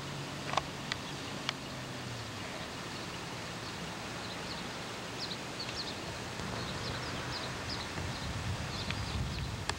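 Outdoor background noise with a few sharp clicks in the first two seconds, a faint low hum that fades out, faint high chirping through the middle, and a low rumble building near the end.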